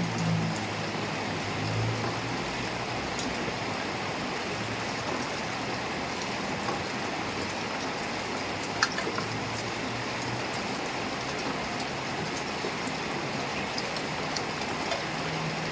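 Heavy rain falling steadily, a dense even hiss with scattered drop ticks and one sharper drip or tap about midway. A low hum fades out in the first second or two.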